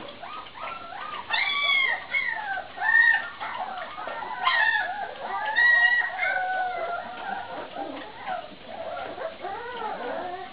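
A litter of Vizsla puppies whining and yelping, many high, arching cries overlapping one another, loudest in the first half.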